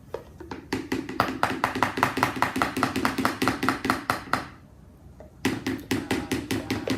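A spoon stirring a glue and shaving-cream slime mixture in a bowl, clacking against the bowl about five times a second, with a break of about a second after the middle.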